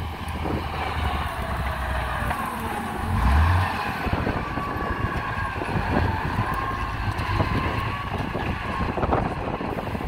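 Komatsu GD625A motor grader's diesel engine running under load as its blade cuts through soil and turf, with a whine that slides in pitch. A brief louder low surge comes about three seconds in.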